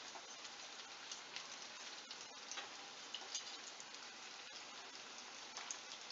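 Potato patties shallow-frying in hot oil in a non-stick pan: a steady sizzle with scattered crackles and small pops.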